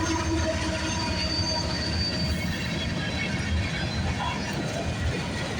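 Freight train rolling past: a steady rumble of steel wheels on rail, with thin high wheel-squeal tones that fade after the first second or two.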